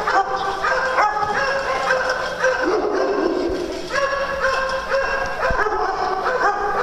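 A group of small dogs barking and yapping without a break, their high barks overlapping one another.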